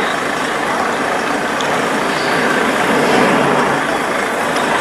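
Airbus A400M's four turboprop engines running loud and steady in flight, swelling slightly about halfway through.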